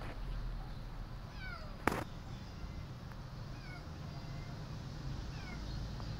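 Kitten meowing repeatedly, short falling cries about once a second, over a steady low rumble. A single sharp click about two seconds in.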